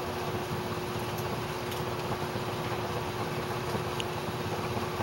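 Steady machine hum and hiss, like a cooling fan running, with a constant low tone under it and a few faint ticks.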